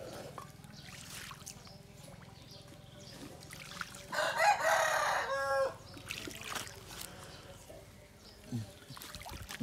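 A rooster crows once, a call of about a second and a half starting about four seconds in and dropping in pitch at its end. Faint water sounds from a hand net dipped in a pond carry on beneath it.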